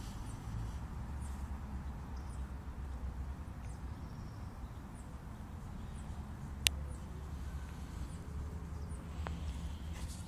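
Outdoor ambience in a park: a steady low rumble, faint high chirps repeating about once a second, and one sharp click about seven seconds in.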